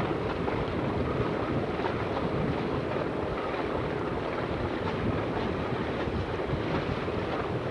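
Wind buffeting the microphone aboard a sailboat under way, a steady rushing noise with a rumbling low end, with the wash of water along the hull beneath it.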